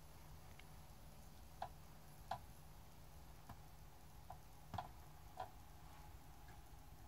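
Near silence: quiet room tone with a low steady hum and about six faint, short clicks or chirps at irregular moments.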